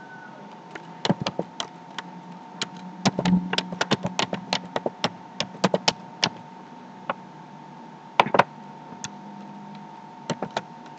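Typing on a computer keyboard: irregular keystroke clicks, with a louder double click about eight seconds in, over a steady faint hum.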